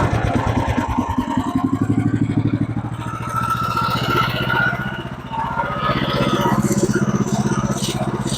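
Gasoline engine of a Woodland Mills HM126 portable band sawmill running steadily, dipping briefly about five seconds in.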